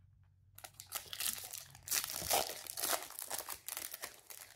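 Foil wrapper of a Topps Chrome Platinum trading-card pack being torn open and crinkled by hand. The crackling starts about half a second in.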